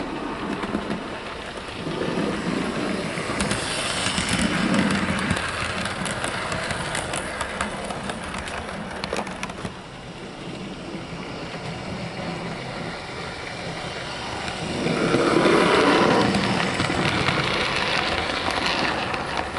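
OO gauge Bachmann USA Dock Tank model steam locomotive running on the layout with three coaches: motor hum and wheels clicking over the rail joints. It swells twice as the train passes close by, loudest near the end.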